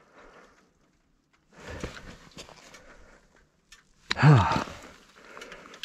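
A motorcyclist breathing hard and sighing, with a short groan that falls in pitch about four seconds in.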